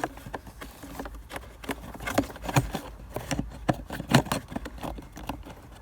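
Irregular plastic clicks and knocks as the cabin air temperature sensor of a Ford Focus 2 is handled and pushed back into its mounting slot in the dashboard.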